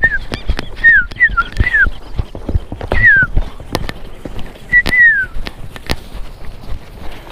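A horse's hooves and jostling at a walk, with many sharp knocks, while short falling whistles sound in clusters near the start, about a second in, about three seconds in and about five seconds in.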